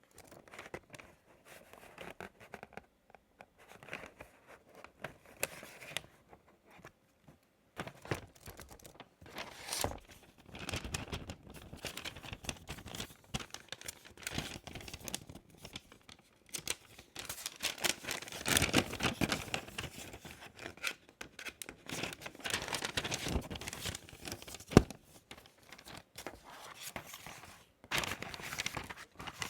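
Product packaging being handled: paper and plastic wrapping rustling, crinkling and tearing in uneven bursts, with one sharp click about three-quarters of the way through.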